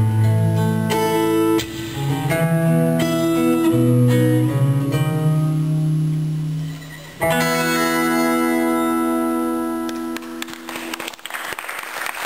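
Solo acoustic guitar playing notes and chords, with a last chord struck about seven seconds in and left to ring out as it fades. Applause starts near the end.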